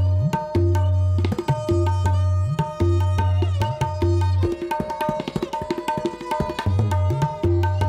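Tabla playing: ringing strokes on the small right-hand drum (dayan) and deep, resonant bass strokes on the left-hand drum (bayan) whose pitch bends as the hand presses the head, with a fast run of rapid strokes about halfway through.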